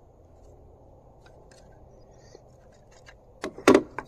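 Hard 3D-printed plastic parts being handled, with a few faint clicks, then two sharp clacks close together near the end as parts knock against the wooden table.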